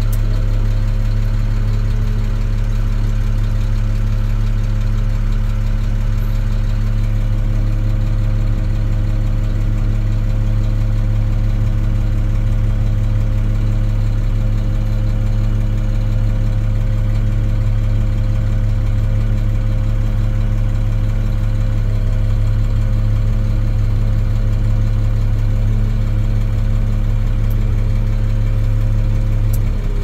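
International WorkStar truck's diesel engine idling steadily, a deep even hum heard from inside the cab. A fainter steady whine joins about seven seconds in.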